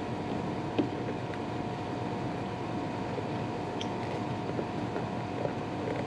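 Steady background hum, with a few faint soft taps and rustles as a rubber inner tube is tucked by hand into a 10-inch scooter tire on its hub motor.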